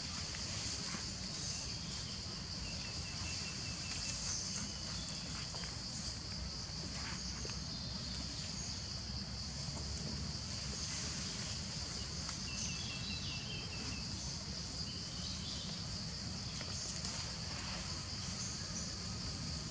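Steady high chirring of an insect chorus over a low rumble, with a few faint short chirping trills now and then.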